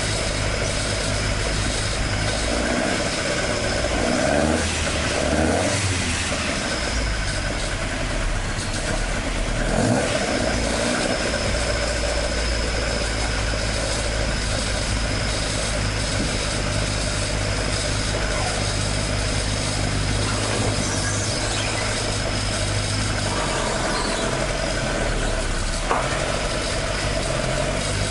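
Toyota AE86's 4A-G four-cylinder engine idling steadily, with a few brief swells in its note about five and ten seconds in.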